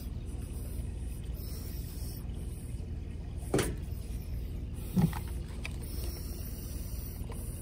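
Steady low rumble of wind on the microphone, broken by two sharp knocks about a second and a half apart in the middle, from the rope work and tool handling.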